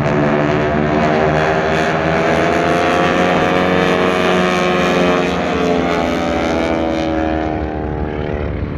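A formation of North American T-6 Texan trainers flying overhead, their nine-cylinder radial engines and propellers droning loudly. The pitch sags a little in the last few seconds as the planes pass.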